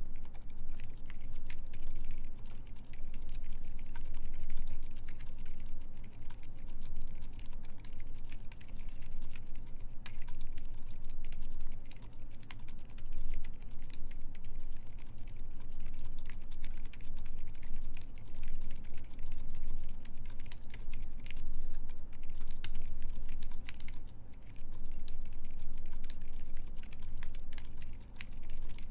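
Continuous typing on a Keycult 2/65 mechanical keyboard with lubed Silent Alpaca silent linear switches on an aluminum plate, under GMK keycaps: a fast, even stream of soft, muted key presses with a few short pauses.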